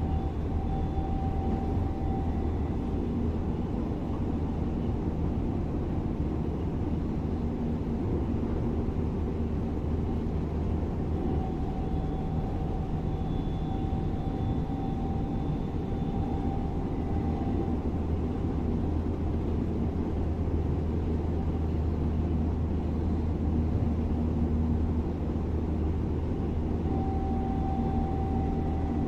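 DB class 425 electric multiple unit (ET 425 778) running steadily, with a constant low rumble. Faint whining tones from its drive come and go over it.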